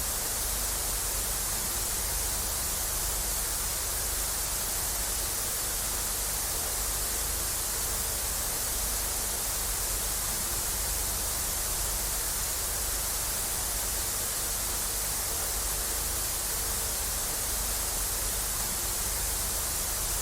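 Analogue TV static: a steady, even hiss of white noise, strongest in the treble, with a faint underlying hum.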